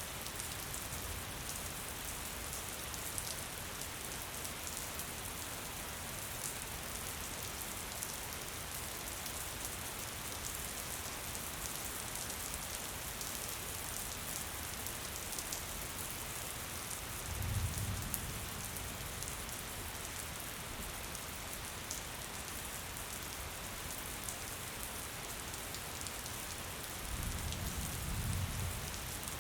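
Gentle, steady rain falling, a constant hiss with fine ticks of individual drops. A low rumble swells briefly about two-thirds of the way in and again near the end.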